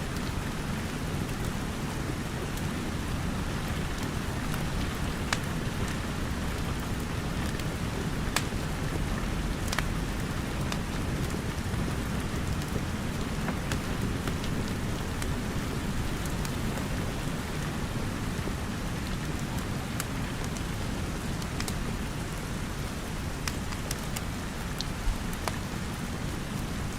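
Steady rain falling, a continuous even hiss, with scattered sharp pops and crackles from a wood fire burning in a fireplace.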